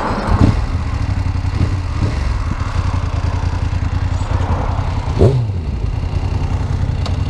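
Motorcycle engine catching on the starter and settling into a steady idle.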